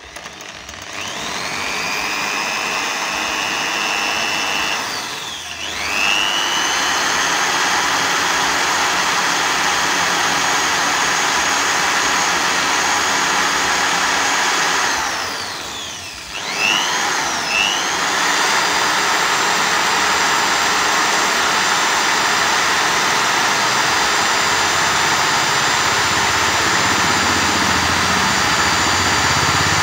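Electric drill running at high speed as it bores a pilot hole into the worn, loose gear-shift lever of a Honda Super Cub. The motor whine winds down twice, about five seconds in and again about sixteen seconds in, and spins back up each time before holding steady.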